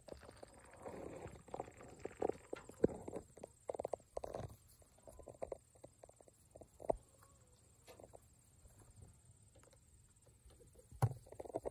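Rabbits tearing and chewing fresh grass close up: irregular soft crunching and snipping. A louder knock comes near the end.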